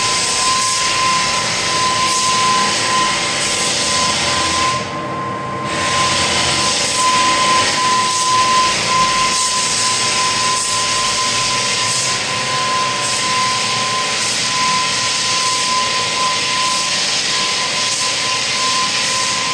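Parquet floor sanding machine running steadily, a constant high whine over a loud rushing grind. About five seconds in the grinding briefly drops away for about a second, then resumes.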